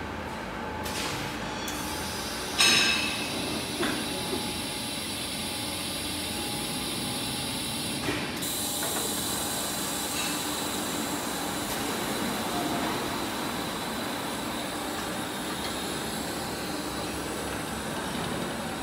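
Foundry sand-mold handling and conveying line running: a steady machinery din with a hiss, a loud metallic clank about two and a half seconds in, and a few lighter knocks after it as the mold pallets are moved along the rails.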